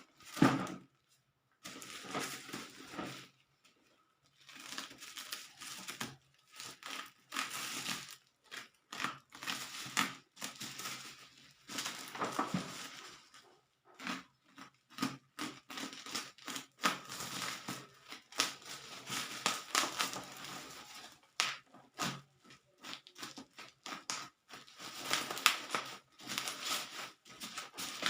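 Toy packaging being handled and opened: plastic and cardboard crinkling and tearing in irregular bursts with short pauses and many small clicks, starting with one sharp knock.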